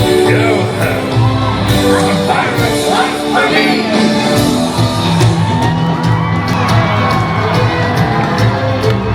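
Music with a singing voice over a steady bass line, with a few shouts and whoops.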